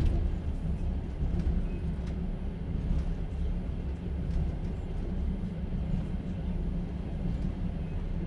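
Steady low rumble of a moving passenger train heard from inside a sleeper carriage, with occasional faint clicks and rattles.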